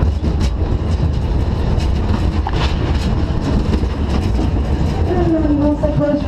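Roller-coaster car running along its steel track: a steady rumble of the wheels on the rails, with scattered clicks and rattles. About five seconds in, a steady tone comes in on top and holds.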